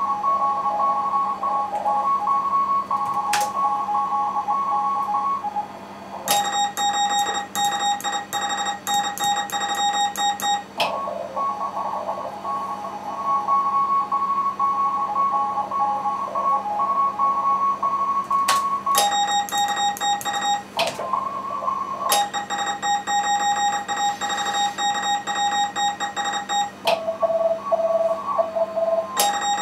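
Morse code (CW) heard from an amateur radio receiver in a contest: fast keyed beeps from several stations at different pitches over band hiss. These alternate with stretches of a single strong, clean keyed tone.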